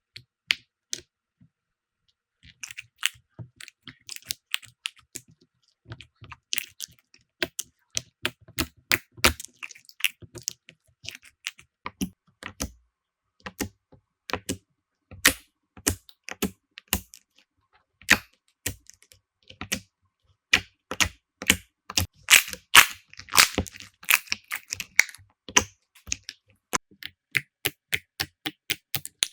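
Slime being squeezed and stretched, giving a long, irregular run of sharp clicks and pops. The clicks grow densest and loudest about three-quarters of the way through.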